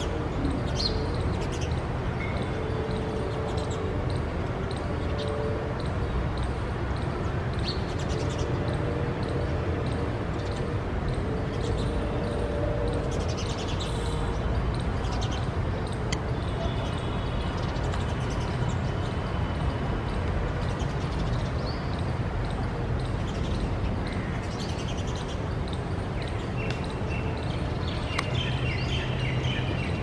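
Outdoor ambience: a steady low background rumble with scattered faint chirps from small birds, coming in a quicker run near the end.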